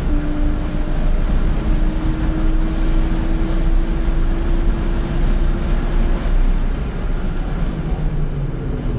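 Porsche 911 Carrera 2 (997) flat-six at full throttle, heard from inside the cabin over heavy wind and road noise: the engine note drops at a gear change right at the start, then climbs slowly as the car accelerates flat out. About two-thirds of the way in the engine note falls away as the driver lifts off and brakes.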